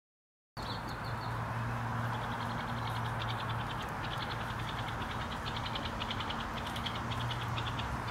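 Outdoor ambience that starts suddenly about half a second in: a steady hiss with a low hum under it, and a fast, high, stuttering trill that comes and goes.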